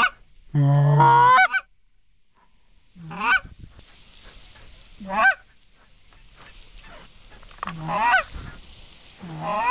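Goose honks blown on a hunter's hand-held goose call at close range: a series of loud separate honks a couple of seconds apart, each rising and then dropping in pitch, calling to a flock of geese coming in to the decoys.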